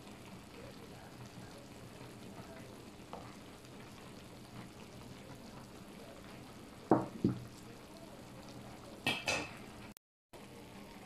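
Pot of kimchi nabe hotpot simmering with a steady soft bubbling. Two short knocks break in, about seven and about nine seconds in.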